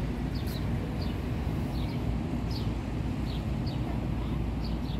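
Small birds chirping, short quick falling notes about twice a second, over a steady low rumble of city traffic.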